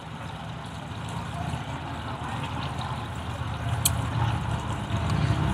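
ShopSmith bandsaw running with a 1/2 inch blade, nibbling at a log section to flatten its bottom: a steady low motor hum that grows louder, with one sharp click about four seconds in.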